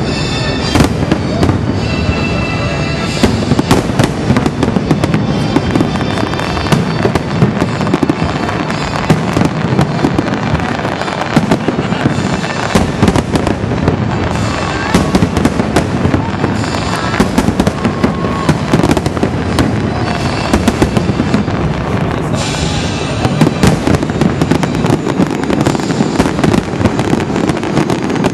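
Fireworks bursting in rapid, unbroken succession, loud bangs overlapping with constant crackling.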